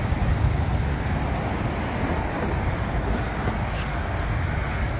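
Wind buffeting the microphone over a steady rumble of motorway traffic.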